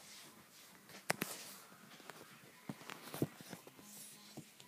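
Handling noise from a camera being moved about with its lens covered: a few faint clicks and knocks over soft rubbing and hiss.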